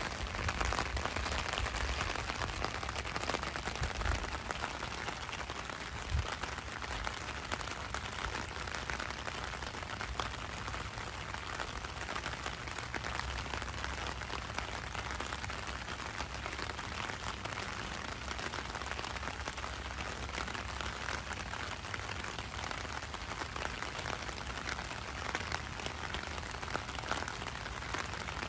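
Steady heavy rain, with drops hitting a clear plastic umbrella held over the microphone. There are a couple of dull low thumps about four and six seconds in.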